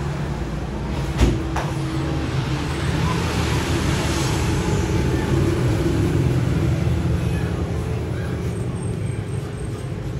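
Road traffic: a motor vehicle's engine running steadily, swelling as it passes about four seconds in and then slowly fading. A sharp knock sounds about a second in.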